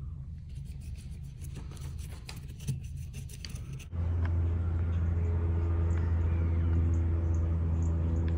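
Scattered light clicks and taps for the first few seconds, then a louder steady low mechanical hum, engine-like, that starts suddenly about four seconds in and runs on evenly.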